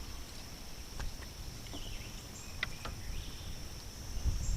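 Steady high-pitched drone of insects, with a few light clicks and a low rumble underneath.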